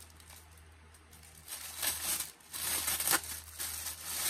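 Plastic packaging bag crinkling and rustling as it is handled and opened, in several bursts starting about a second and a half in.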